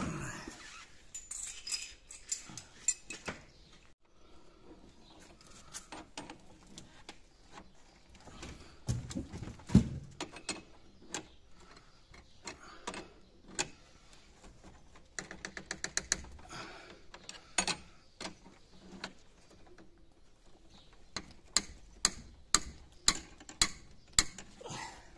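Steel open-end wrenches clinking and clicking against each other and the brass flare nut on the copper refrigerant line of a split air-conditioner indoor unit, in scattered metallic taps. There is a louder knock about ten seconds in, and a quick run of sharp clicks about twice a second near the end.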